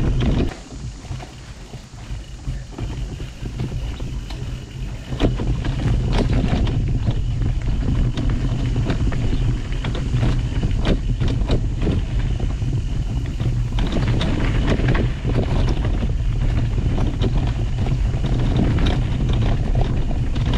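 Wind rumbling on the camera microphone as a mountain bike rides fast down a dirt forest trail, with tyre noise on the dirt and frequent knocks and rattles from the bike going over roots and rocks. Quieter for the first few seconds, then louder from about five seconds in.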